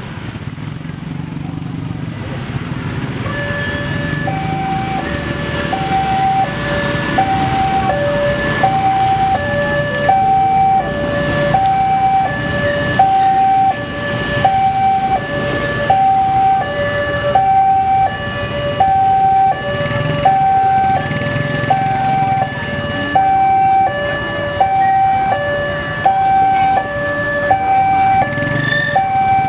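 Railroad level crossing warning alarm sounding an electronic two-tone signal, alternating high and low about once a second, as the crossing barriers lower for an approaching train. It starts a few seconds in over the low rumble of waiting motorbike traffic.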